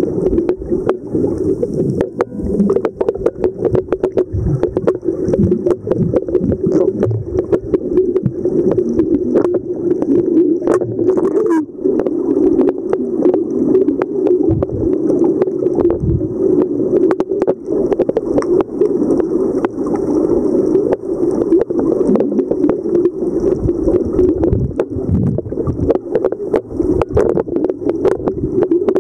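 Underwater sound heard through a submerged camera: a steady low hum, with frequent sharp clicks and crackles all through.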